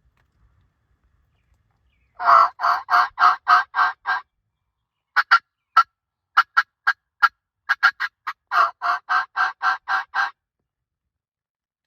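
Hen turkey calling: a run of about seven yelps, then a burst of short, sharp cutts, then another longer run of yelps, all close and clear.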